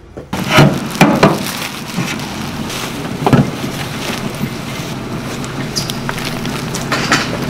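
Steady outdoor rushing background noise with scattered sharp knocks and rustles, the loudest about a second in, as gloved hands roll gimbap on a bamboo mat and handle a plastic bag.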